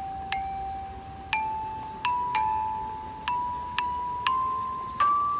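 Metal bars of an outdoor metallophone struck one at a time with a round-headed mallet, about eight notes that climb gradually in pitch, each ringing on after the strike.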